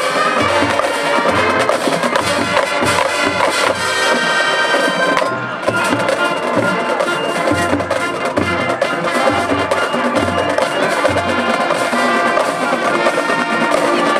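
High school marching band playing: brass chords over bass drums and a drumline. About four seconds in the brass holds a chord that breaks off briefly just after five seconds, then the full band carries on.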